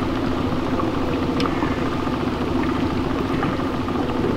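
Small fishing boat's motor running steadily, with a low hum under wind noise on the microphone and a few faint ticks.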